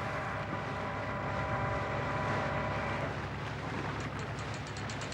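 Boat motor running steadily with a low, even hum; a higher whine fades out about three seconds in, and faint rapid ticking comes near the end.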